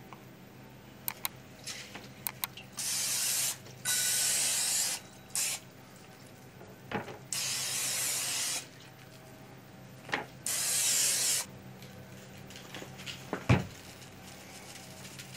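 Aerosol olive-oil cooking spray hissing in five short bursts of about a second each as it coats raw beef roasts. A few light clicks come before the first burst, and a single sharp knock near the end.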